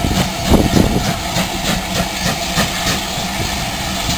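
Steam locomotive No. 3717 City of Truro, a GWR 4-4-0, working slowly. Its exhaust beats come evenly about three a second over a hiss of steam from the open cylinder drain cocks.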